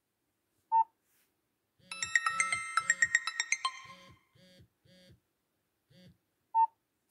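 An Android ringtone played on a Nokia phone: a quick run of bright electronic notes over a low pulse repeating about three times a second. The notes die away after a couple of seconds while the pulse carries on faintly. A short single beep comes about a second in and another near the end.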